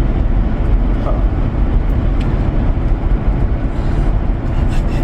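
Car driving at speed: a steady, loud low road and engine rumble.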